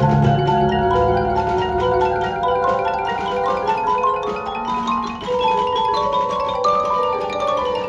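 Marching band front ensemble playing a mallet-percussion passage: marimba and glockenspiel in quick runs of ringing notes, over a low held chord that fades out about a second in.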